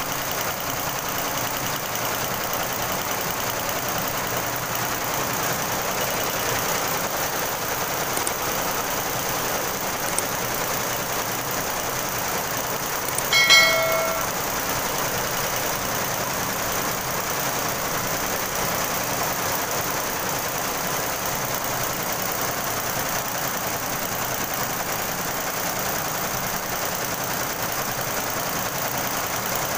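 Multi-head computerized embroidery machine running steadily, its needle heads stitching fabric. A brief chime sounds once about halfway through.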